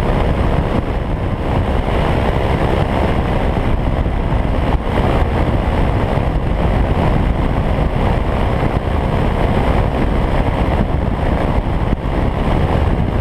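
Steady in-flight drone in the open seat of a Bautek Skycruiser ultralight trike: its Briggs & Stratton Vanguard engine and propeller running evenly, mixed with loud rushing wind.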